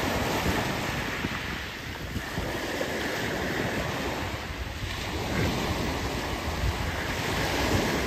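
Small sea waves breaking and washing up a pebble beach, a steady surf hiss, with wind buffeting the microphone in low gusts.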